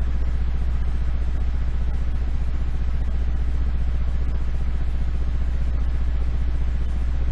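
Steady low hum with a constant hiss, unchanging throughout: the recording's background noise, with no speech.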